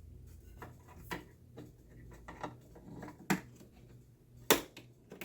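Scattered light clicks and knocks of RAM sticks being handled and seated in the memory slots of a Mac Pro processor tray. The loudest click comes about four and a half seconds in.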